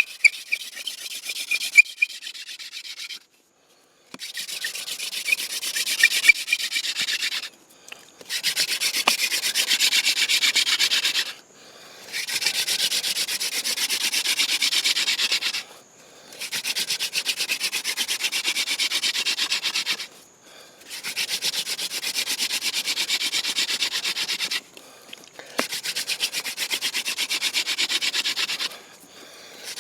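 Yucca-stalk hand drill spindle spun back and forth between the palms in a trumpet vine hearth board: a rapid, finely pulsed rubbing hiss in runs of about three to four seconds, broken by short pauses. This is friction drilling to build an ember.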